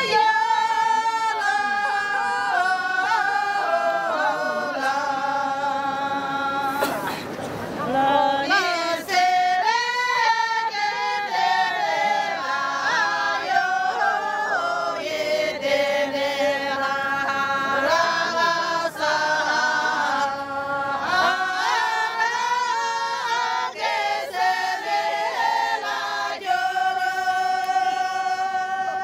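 A group of women singing a Hyolmo syabru dance song together in unison, unaccompanied, in long held phrases with short breaks between lines.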